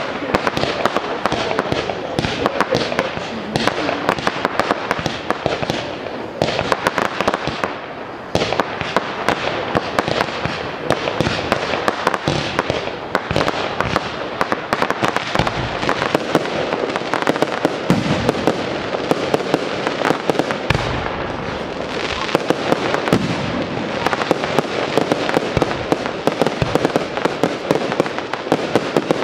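Fireworks display going off in a dense, continuous barrage: many sharp bangs and crackles a second, with a deeper boom about two-thirds of the way through.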